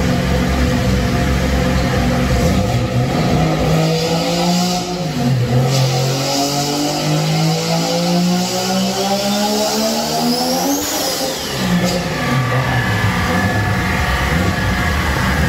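Mazda RX-7's three-rotor rotary engine idling, then revving up steadily for about six seconds with a high whistle climbing alongside, before dropping sharply back to idle about eleven seconds in.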